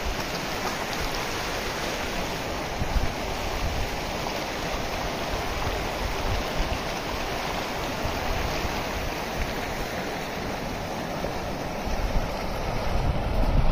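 Shallow mountain stream rushing steadily over rocks and cobbles. Near the end, a low wind rumble on the microphone joins in and grows louder.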